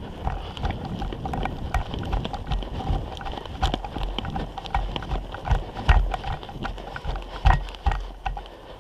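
Footsteps crunching through snow at a brisk pace, an irregular run of thuds and crunches with heavy low knocks.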